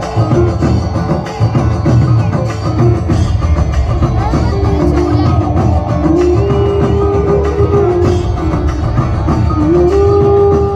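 Background music with a steady percussion beat. About halfway through, a held melodic line comes in, sliding between long notes.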